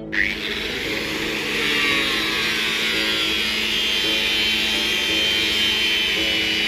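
Electric angle grinder starting up with a short rising whine, then running steadily as its abrasive disc grinds down a coconut-wood sheath blank.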